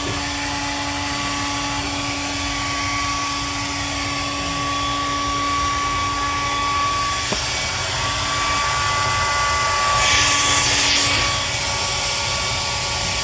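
Handheld hair dryer running steadily, a whine and hum over the rush of air, blown at a 3D printer to warm it and clear a Mintemp (too-cold temperature reading) error. A single click about seven seconds in, and the air gets louder and hissier for about a second around ten seconds in.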